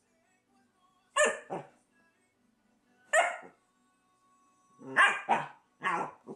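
Ten-week-old Berger Picard puppy giving short, sharp play barks, about six in all: a pair, a single one, another pair and one more near the end.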